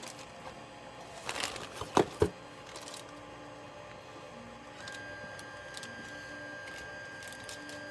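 A small plastic bag holding a BL Touch probe being handled: a short rustle and crinkle, with two sharp clicks about two seconds in. A faint steady high tone comes in about five seconds in.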